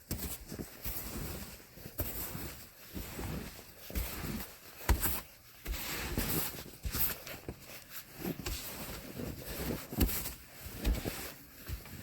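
Footsteps crunching in deep snow, uneven steps with occasional sharper thumps.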